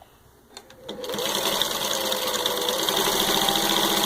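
1949 Singer 15-91 sewing machine, motor freshly rebuilt, starting up about a second in with a rising whine, then running fast and steady as it stitches through six layers of denim.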